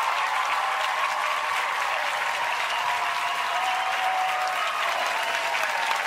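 Studio audience applauding and cheering after a dance performance: dense, steady clapping with whoops and shouts over it.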